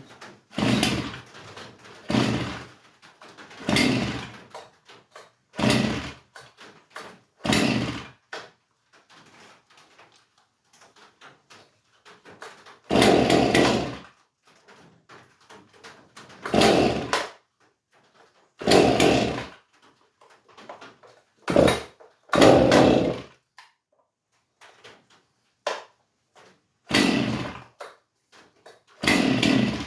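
Stihl MS311 chainsaw being pull-started over and over with its new ignition coil: about a dozen short bursts a second or more apart, the longest lasting about a second and a half near the middle, as the engine tries to fire.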